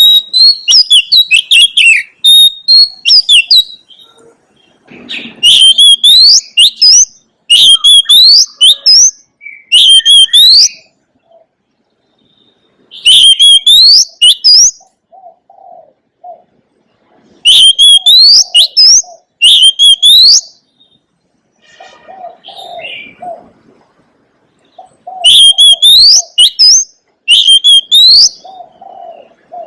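Oriental magpie-robin singing: loud phrases of rapid, sweeping whistled notes, each lasting one to three seconds with short pauses between them. Low cooing notes sound in several of the gaps.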